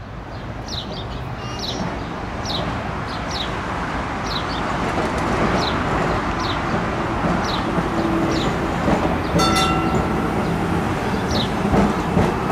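Preserved Melbourne SW6 W-class tram running toward the listener on its track, its steady rumble growing slowly louder, with a bird chirping over and over above it. A brief metallic ring sounds about nine and a half seconds in.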